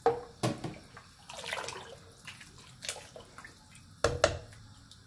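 Water poured into a soup pot, splashing in short spells, with a few sharp knocks of pot or utensil and a low thump about four seconds in.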